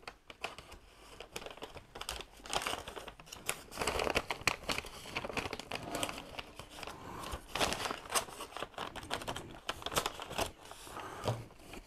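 Brown paper bag being opened and rummaged through: irregular crinkling and rustling of stiff paper, in uneven bursts.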